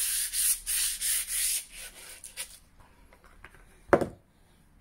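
Sandpaper rubbed back and forth by hand along a burnt, oiled hickory axe handle, a few quick hissing strokes over the first two and a half seconds, sanding to fluff up the grain between coats of oil. About four seconds in, one sharp knock as the handle is set down on the bench.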